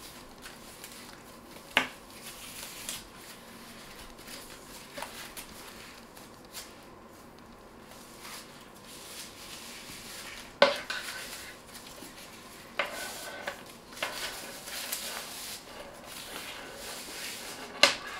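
Plastic wrapping rustling as it is pulled off a leather bag strap, with a handful of sharp clinks from the strap's metal clips, the loudest about two seconds in, a little past the middle and near the end.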